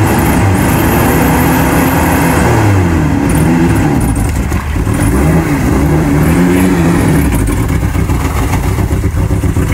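Off-road vehicle's engine revving hard under load, its pitch rising and falling again and again as the driver works the throttle trying to get through the bog.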